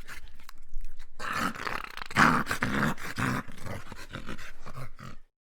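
A dog growling in rough, uneven bursts that cut off suddenly about five seconds in.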